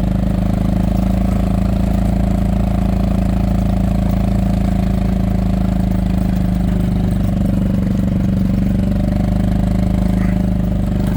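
Golf cart engine running steadily under load as the cart climbs a wet, snowy lane, one rear tire spinning without traction.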